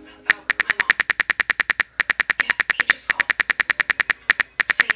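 Typing sound effect of a texting-story chat animation: rapid, evenly spaced keyboard clicks, about ten a second, in runs with short breaks as a message is typed out.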